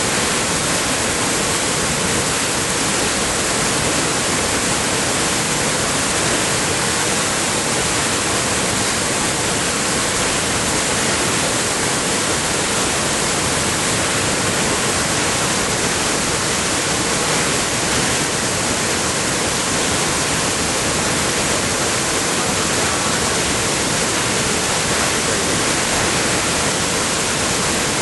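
Whitewater of a rocky creek tumbling over boulders: a loud, steady rush that does not change.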